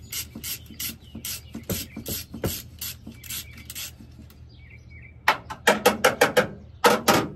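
Socket ratchet clicking as a nut is worked off the ground terminal of a starter solenoid: a run of steady clicks about three a second, a pause of a couple of seconds, then louder, quicker clicks near the end.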